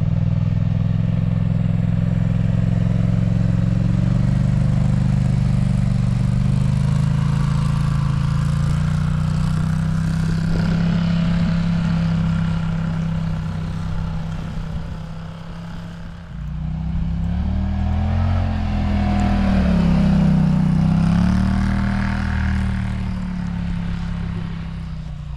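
A motor vehicle's engine running steadily, then revving up and down twice from about 16 seconds in.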